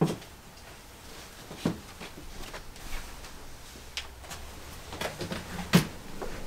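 A handful of scattered knocks and clicks over a low room hum, the sharpest one right at the start.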